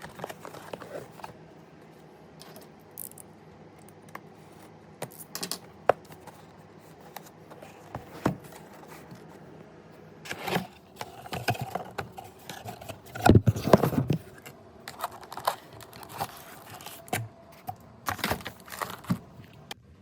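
Objects and packaging being handled at close range: crinkling and tearing with irregular small clicks and knocks, loudest in a cluster of knocks about two-thirds of the way through.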